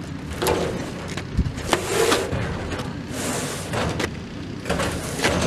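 Heavy steel tool box being shoved and shifted by hand: a series of scrapes and rubs, each under a second long, with a dull thump about a second and a half in.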